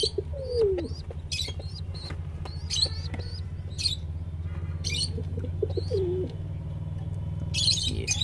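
Birds chirping in short high bursts about once a second, with a low falling pigeon coo twice, over a steady low hum.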